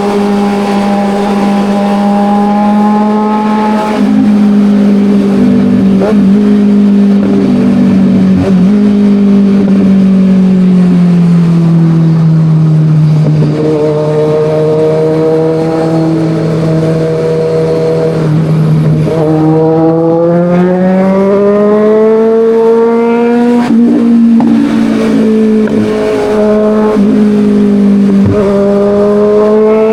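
Kawasaki Ninja 1000's inline-four engine under way: it holds a steady note, eases off and drops in pitch, then pulls up again in rising sweeps, with short breaks and steps in pitch at the gear changes, several of them in the second half.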